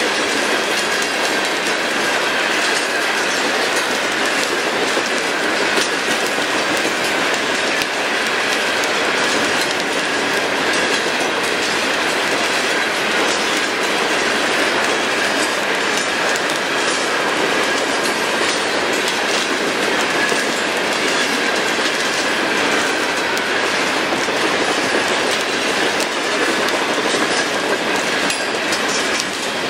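Norfolk Southern coal hopper cars rolling past at close range, a steady rumble of steel wheels on rail with clickety-clack over the joints and a thin steady squeal above it.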